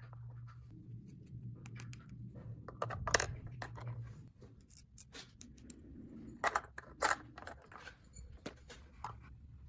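Hands handling small plastic toy pieces: irregular light clicks, taps and rustles, with a few sharper clacks about three seconds in and again around six and seven seconds, over a faint low hum in the first few seconds.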